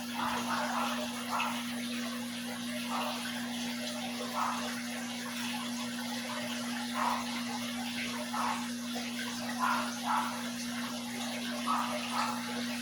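Aquarium water running and splashing, with irregular little gurgles every second or so over a steady hiss, and a steady low hum throughout.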